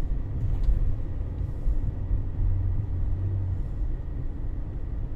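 Cabin noise of a Mercedes-Benz car driving on a wet road: a steady low engine and road rumble.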